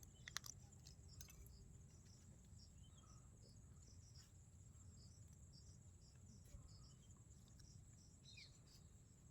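Near silence: faint outdoor ambience of insects chirping in a steady pulse, about three chirps a second, with a brief falling chirp near the end.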